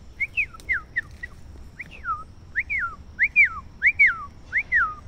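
A person whistling a string of about a dozen clear notes, each sliding up and then down, mostly in quick pairs and loudest in the second half.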